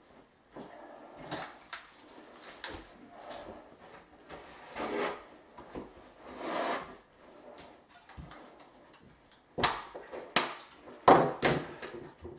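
Mineral wool insulation rustling as it is handled and pressed down between wooden floor joists, with scattered knocks on the chipboard floor and joists. A quick cluster of sharp knocks near the end is the loudest part.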